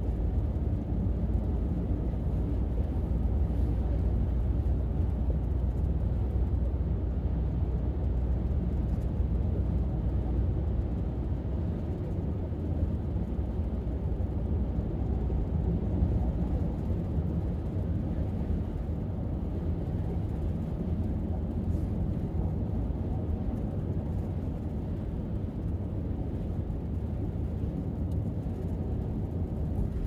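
Road and engine noise inside the cabin of a moving 2018 Dodge Grand Caravan minivan: a steady low rumble, a little heavier in the first half.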